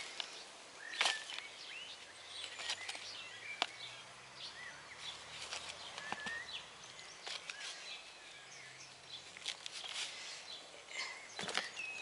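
Small birds chirping in short, scattered calls, with a few soft knocks and rustles from hands handling a plastic pot and potting mix.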